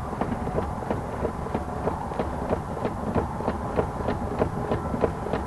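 2003 Chevrolet Cavalier's 2.2 Ecotec engine running, a steady low hum with a regular ticking about three to four times a second.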